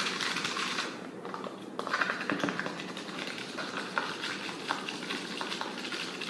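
Baking soda and water being stirred briskly with a utensil in a container: fast scraping and clicking, with a short pause about a second in.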